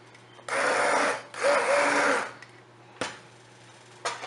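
Hand-held stick blender running in two short bursts, each under a second, as it mashes thick haleem in a metal pot, followed by two sharp knocks.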